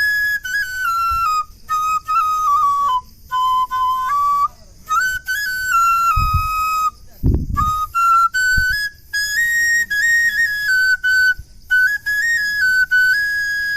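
A bãshi, a Bengali bamboo flute, played solo: a single melody of held notes stepping up and down, in phrases broken by short breath pauses. A brief low rumble comes about seven seconds in.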